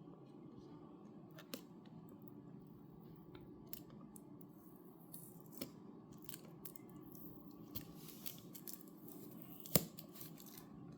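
Faint scattered clicks, scrapes and snips of a keyboard box's packaging being cut and worked open, with one sharper click near the end, over a steady low hum.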